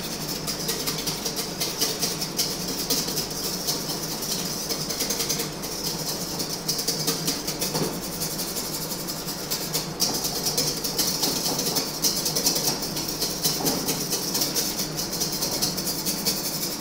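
Zabaglione of egg yolks, sugar and sweet wine beaten fast in a stainless steel bowl: a steady, rapid scraping and clinking of the utensil against the metal as the mixture cooks and thickens.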